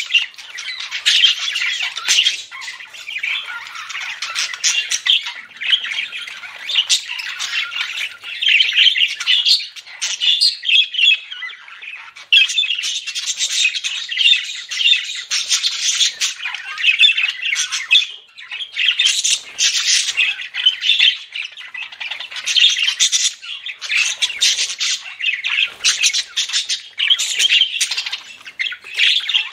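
Budgerigars chattering and warbling without a break, a dense run of quick chirps and calls.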